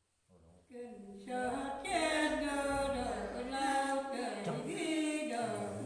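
An elderly woman sings a Nùng folk song unaccompanied, with long held notes, starting about a second in.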